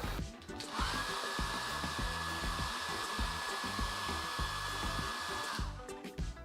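Hair dryer blowing steadily with a high whine: switched on about a second in, spinning up briefly, and switched off near the end.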